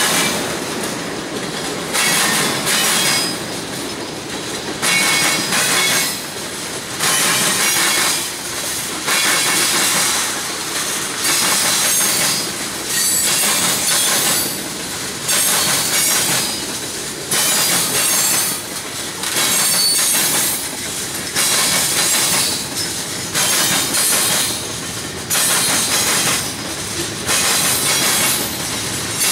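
Freight train cars rolling over a railroad diamond crossing, their wheels banging over the crossing in a repeating clatter, a loud burst about every one and a half to two seconds as each pair of trucks passes.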